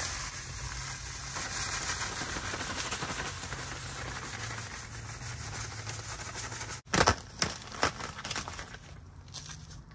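Sand pouring out of a plastic sand bag onto gravel, a steady crackly hiss with the bag crinkling. About seven seconds in comes a series of four loud knocks within a second and a half.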